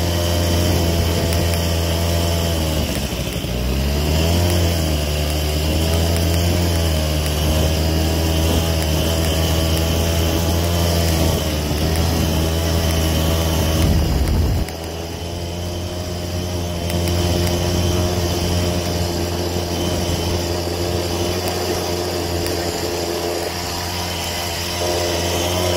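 Engine of a small off-road vehicle running while it drives over sand, its pitch dipping and coming back up about three seconds in, and running quieter from about fifteen seconds on.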